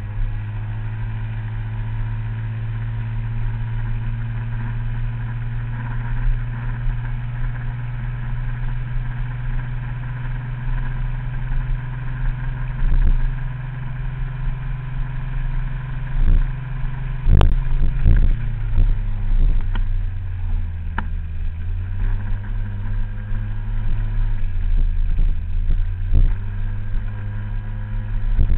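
Scooter engine running while riding along a village road, its note steady through the first half. A little past the middle it drops, with a few sharp thumps, then climbs again near the end.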